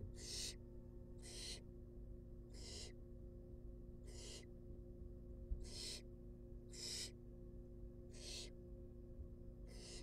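Barn owl nestlings giving raspy hissing begging calls, about eight short hisses spaced a second or so apart, as they beg to be fed. A faint steady electrical hum lies underneath.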